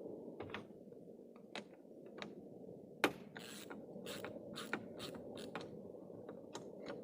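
Socket ratchet clicking in short, irregular bursts as a light bar bracket bolt on the roof gutter is snugged down, left loose enough to move. A steady low hum runs underneath.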